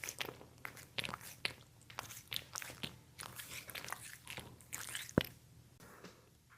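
A small pet crunching and chewing a freeze-dried treat: a quick run of crisp crunches, with one sharp click about five seconds in, then dying down near the end.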